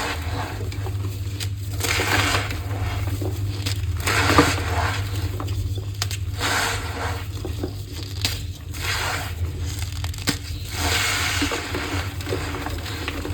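Blocks of gym chalk crushed and squeezed by hand, a squeaky, crumbling crunch repeated every couple of seconds. A low steady hum runs underneath.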